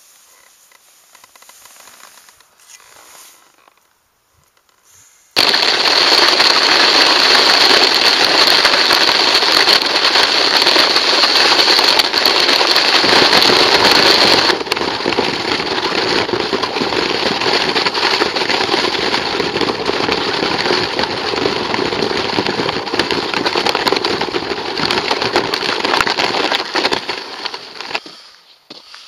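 A sled being dragged over crusted ice, its runners scraping and crackling in a loud, dense rush. It starts suddenly about five seconds in, eases a little midway and dies away near the end.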